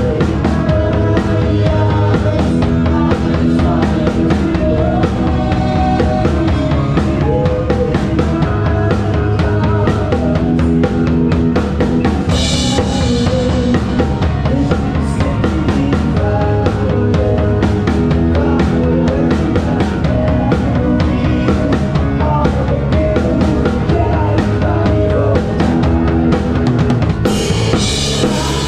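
Live band playing, heard up close from the drum kit: bass drum and snare keep a steady beat under the band's pitched instruments. Cymbals wash in about twelve seconds in and again near the end.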